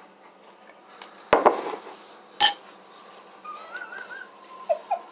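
A spoon knocking and clinking in a bowl of cold fruit cereal, two sharp clinks about a second apart, the second the louder. Near the end come a few short, pitched sounds.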